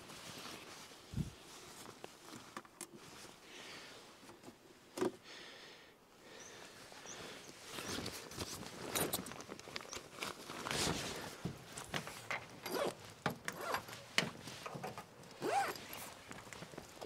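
Rooftop tent fabric rustling and cords being handled as the tent is opened out, with irregular scrapes and a few sharp knocks.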